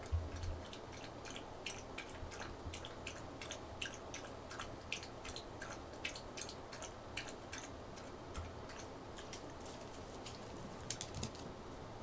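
A chihuahua making a run of light, quick clicks, about three a second, that stops near the end.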